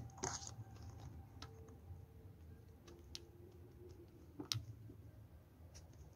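Faint, scattered clicks and taps from a stranded copper earth wire and an earth clamp being handled and fitted onto a copper earth rod, with one sharper click about four and a half seconds in.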